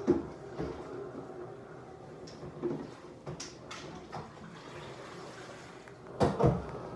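A person drinking ginger ale: quiet sips and small handling clicks over a low steady background, with a louder short sound about six seconds in.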